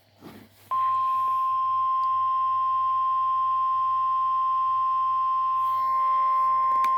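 NOAA Weather Radio 1050 Hz warning alarm tone: one steady, unbroken high tone that starts under a second in. It is the attention signal that comes ahead of a severe thunderstorm warning message.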